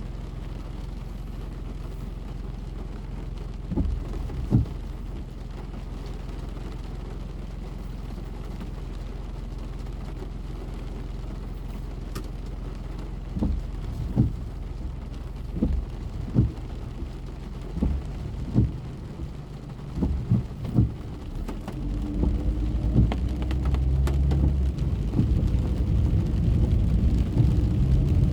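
Rain on a moving car, heard from inside the cabin over a steady rumble of road and engine noise, with a string of dull low thumps. About two-thirds of the way through the engine noise grows louder, with a hum and a slowly rising tone near the end as the car picks up speed.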